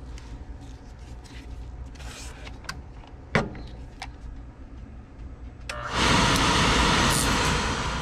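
Beckett oil burner starting on a call for heat: a few light clicks and one sharp click a little over three seconds in, then about six seconds in the burner motor and fan start with a loud, steady rushing hiss that eases off near the end.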